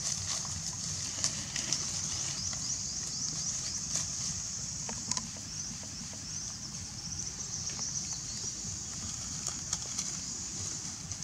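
A steady high-pitched chorus of insects, with a few soft clicks and rustles from dry leaves on the ground.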